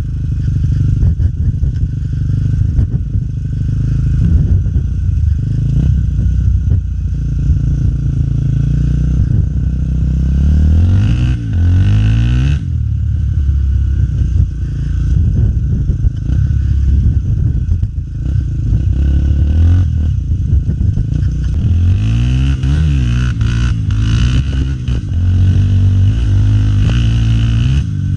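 Honda XR 250 Tornado's single-cylinder four-stroke engine running under way on a dirt trail, the engine note rising and falling as the throttle opens and closes, with clear climbing revs near the middle and again later on.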